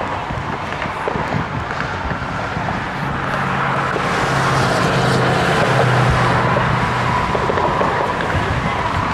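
An engine passing close by: a low, steady hum comes in about three seconds in, swells and fades again near the end, over constant outdoor background noise.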